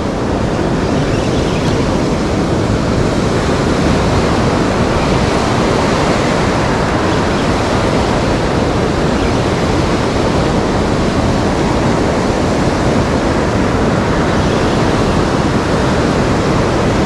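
Surf breaking and washing up a sandy beach, a steady loud rushing noise.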